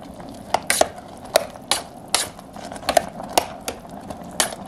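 Metal spoon clinking and scraping against the inside of a stainless steel electric multi-cooker pot while stirring diced eggplant in curry-spiced water, a string of irregular clinks about twice a second.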